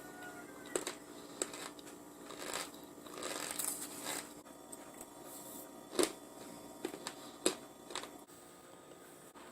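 Cornstarch being chewed close to the mic: squeaky, crunchy bites with several sharp cracks between softer crunching.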